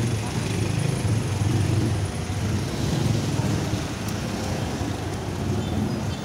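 Steady low rumble of city street traffic: passing cars and other motor vehicles.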